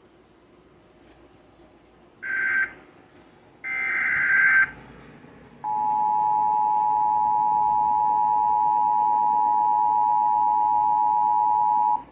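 Emergency Alert System signal: two harsh digital data bursts, the end of the SAME header, then the EAS two-tone attention signal (about 853 and 960 Hz together) held steady for about six seconds before cutting off. It heralds a flash flood warning.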